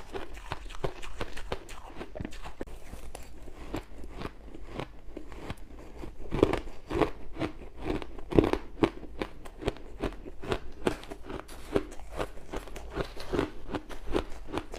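Ice being bitten and chewed close to the microphone: a steady run of sharp, crunchy cracks, several a second.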